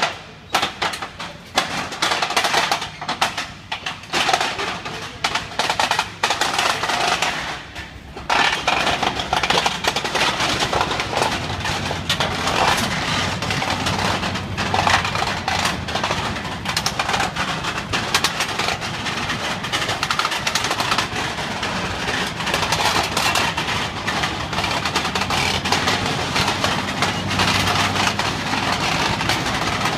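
Restored WWII German Panther tank on the move: its engine running and steel tracks clattering and clanking. The clatter is sharpest and most broken for the first eight seconds, then settles into a steady, heavy running din.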